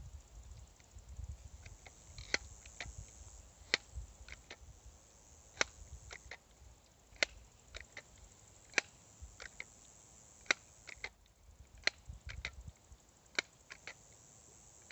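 BB gun being fired repeatedly: about eight sharp cracks, roughly one every one and a half to two seconds, with fainter clicks between them and a low rumble underneath.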